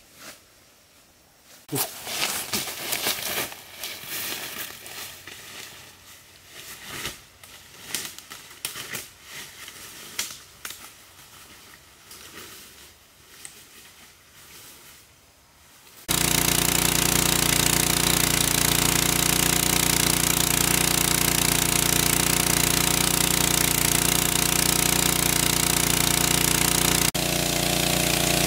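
Footsteps rustling through ferns and dry leaves on a forest path. About halfway through, this cuts abruptly to a small engine-driven water pump running loudly and steadily as it pumps water out through its hose.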